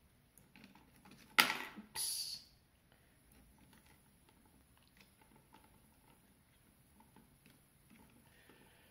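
Plastic action-figure parts being pressed onto peg holes: a sharp click about a second and a half in, then a brief scraping snap, followed by faint small clicks of handling.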